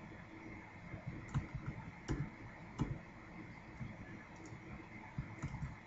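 Computer mouse clicking several times over a steady low hum and hiss. Three sharper clicks come about two-thirds of a second apart in the first half, and fainter ones follow later.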